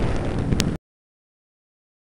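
Rough rumble and hiss of a dirt-bike ride, mostly wind buffeting the microphone over motor noise, with a sharp click. Under a second in it cuts off abruptly to dead silence.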